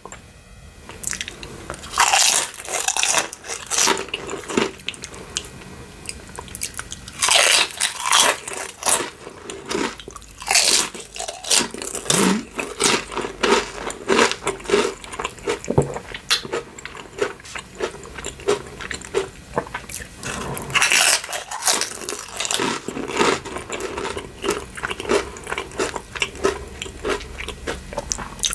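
Crisp nacho chips crunching again and again in clustered bursts of crackling, as they are bitten and chewed.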